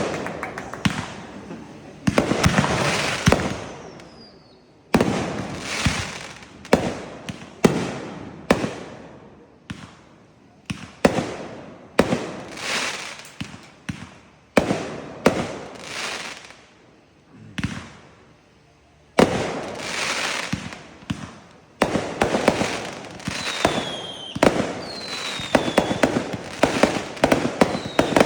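Consumer fireworks going off: a series of sharp bangs, each followed by a crackling tail, with a few brief falling whistles. The bangs come faster near the end.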